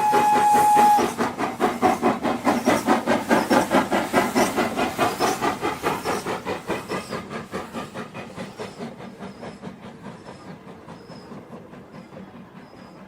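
A train's horn holds one steady note and stops about a second in. It is followed by the fast rhythmic clatter of the train's wheels over the rail joints, which fades steadily as the train draws away.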